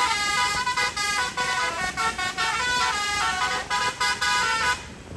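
Indonesian tour bus's telolet horn, a set of musical air horns playing a fast melody of stepped notes, several tones at once, cutting off shortly before the end.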